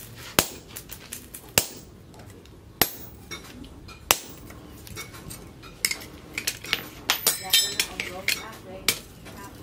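Hammer blows on a red-hot steel sickle blade held with tongs on a steel anvil post: four sharp strikes about a second and a quarter apart, then a run of lighter, quicker taps and metal clinks with brief ringing.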